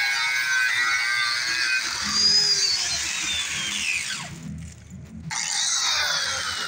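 Background electronic music with sliding synth tones that sweep up and down, and a brief cut in its upper range about four and a half seconds in.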